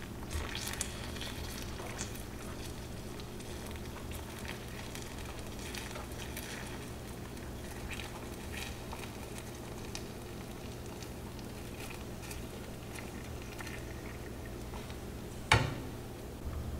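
Sugar syrup for tanghulu bubbling and crackling in a frying pan as fruit skewers are rolled through it, over a steady low hum. A sharp knock near the end.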